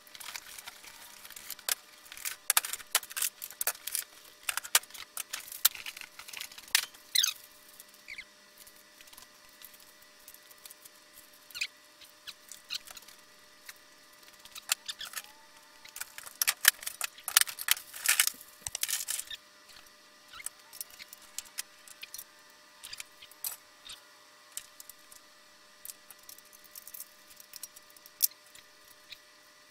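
Portable workbench being unpacked and its parts handled: scattered rustling, clicks and light knocks of metal parts, coming in clusters with quiet gaps between.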